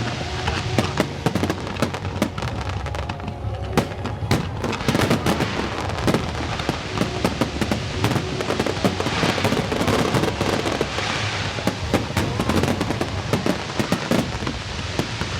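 Fireworks display going off: a dense, irregular string of bangs and crackles.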